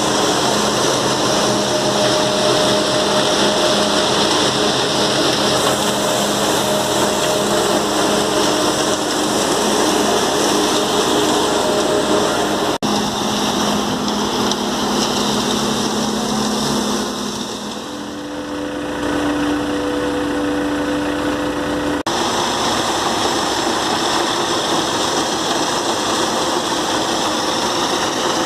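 Engine of an Ajax Fiori ARGO 4000 self-loading concrete mixer running steadily under work, its pitch shifting a few times and easing briefly about two-thirds of the way through.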